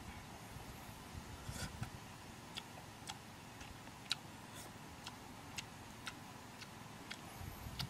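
Faint, irregular small clicks, about one or two a second, from a man eating grilled fish: mouth and lip clicks as he chews.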